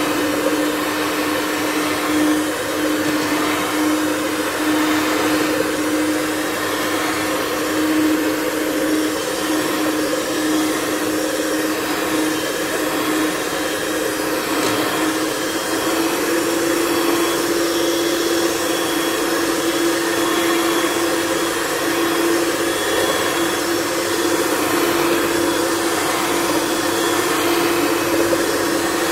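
White handheld electric mixer running steadily, its beaters whipping a thin cream and milk mixture in a stainless steel bowl. The motor's hum steps up slightly in pitch about halfway through.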